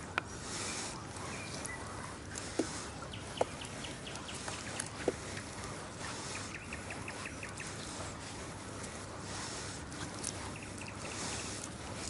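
A small inflatable boat being rowed on calm water: a swish of water from the oars every second or two, with a few sharp knocks of the oars. Twice a short, fast run of ticks sounds over it, a bird calling.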